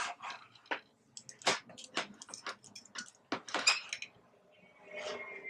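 Irregular sharp clicks and rustles of hair-styling tools and hair being handled, such as a crimping iron, clips and a comb. There is a softer rustle near the end.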